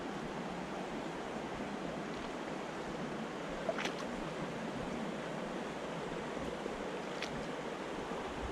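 Shallow stony stream running over a riffle: a steady rush of flowing water, with a couple of brief, faint high-pitched sounds about four and seven seconds in.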